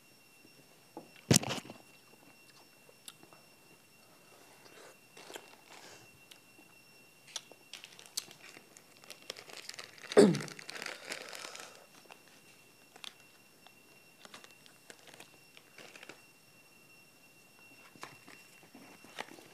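Close-up eating and packaging sounds: a sharp crunch about a second in, then scattered small clicks and rustles. About halfway through, a plastic ice cream wrapper is torn open with over a second of loud crinkling.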